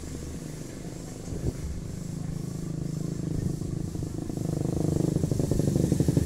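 A truck engine running as it drives off, then a motorcycle engine approaching, growing steadily louder over the last two seconds.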